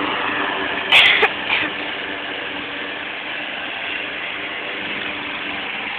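Walk-behind gas lawn mower engine running steadily, with a short louder clatter about a second in.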